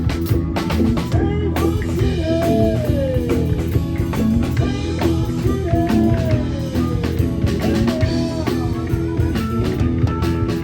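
A live rock band playing: electric guitar with long bent, sliding notes over drums and bass.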